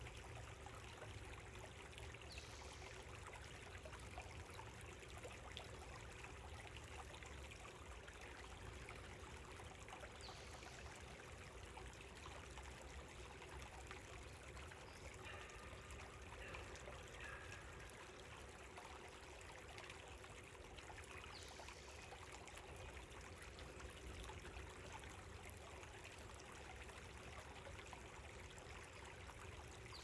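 A small creek babbling faintly and steadily.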